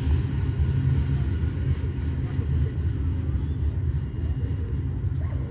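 Loaded covered-hopper grain train rolling away down the track: a steady low rumble that slowly fades.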